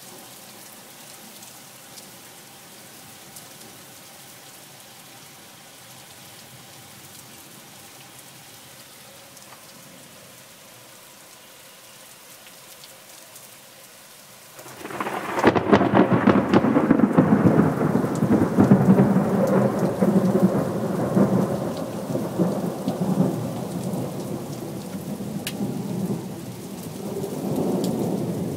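Steady rain falling on a street, then about halfway through a loud thunderclap breaks in and rolls on as a long rumble that swells and slowly fades.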